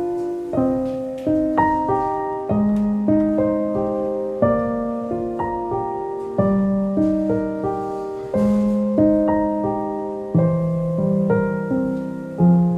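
Slow, gentle solo piano music: single notes and chords struck one after another, each left to ring and fade.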